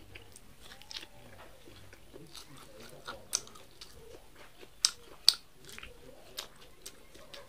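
Close-up chewing and biting of corn kernels off the cob, with short sharp crunches; the loudest two come about five seconds in.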